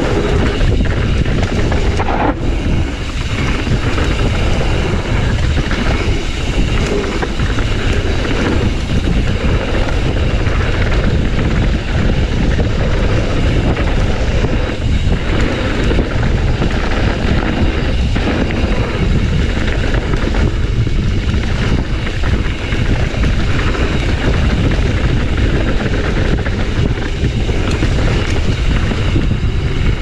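Mountain bike descending a bike-park trail: steady loud rush of wind over the microphone, with the bike rattling and chattering over rough ground.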